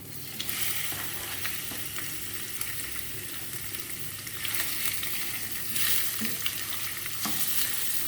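Food sizzling in hot oil in a frying pan while it is stirred, with scattered clicks and scrapes of the utensil against the pan. The sizzle jumps louder about half a second in and swells again a few seconds later.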